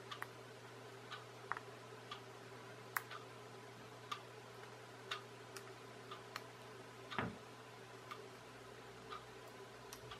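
Light clicks and taps of small plastic and metal model-kit parts being handled and fitted on a tabletop, with one heavier knock about seven seconds in. Behind them, a steady tick about once a second and a faint low hum.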